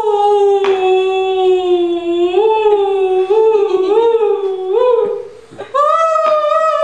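A woman imitating a whale's song with her voice: long, unbroken hummed or crooned tones that slide slowly up and down in pitch, broken once by a short breath about five seconds in.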